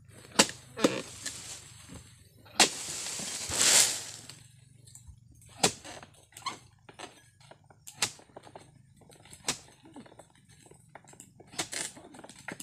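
Oil palm harvesting chisel on a long pole striking into the frond bases of a palm, sharp chopping hits about every one and a half to two seconds, with a quick cluster of hits at the start. About three seconds in there is a longer rustling crash, like a cut frond or bunch coming down through the leaves.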